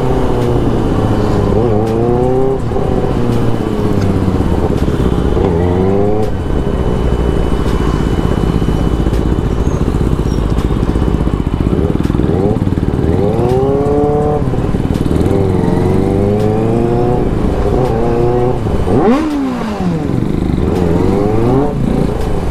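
Benelli motorcycle engine revved in repeated blips at low riding speed, its pitch rising and falling several times, most steeply about nineteen seconds in.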